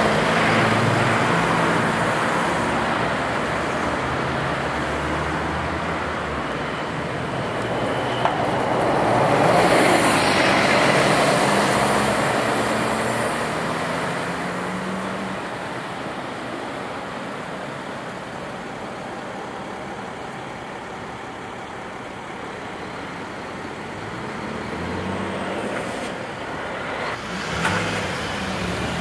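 Road traffic noise: motor vehicles running and passing, with one louder pass swelling up about ten seconds in.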